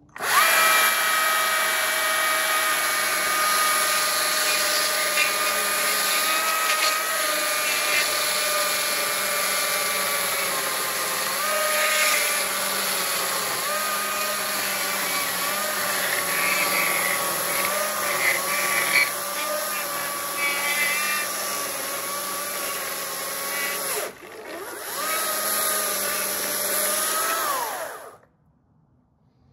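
Battery-powered Stihl chainsaw ripping lengthwise along a log: a steady motor whine that sags and wavers in pitch as the chain bites into the wood. It stops briefly once, runs again, then winds down with a falling whine near the end.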